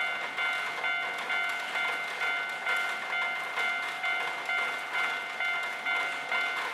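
Japanese railway level-crossing warning bell ringing over and over, a clanging tone repeating about twice a second.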